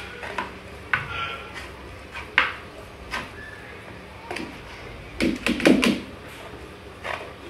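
Pestle pounding and grinding in a mortar: irregular knocks roughly once a second, with a burst of heavier, louder thuds about five to six seconds in.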